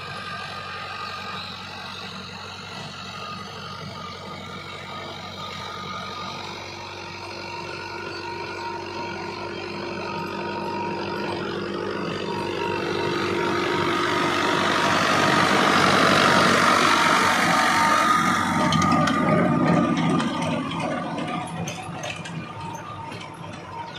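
Farm tractor's diesel engine running under load as it pulls a rotary tiller through soil, a steady drone that grows louder as the tractor comes close about two-thirds of the way in, then fades. Some light rattling near the end.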